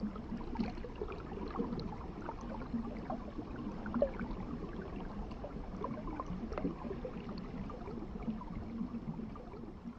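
Water gently gurgling and trickling: a steady soft burble with many small irregular drips and bubbling pops.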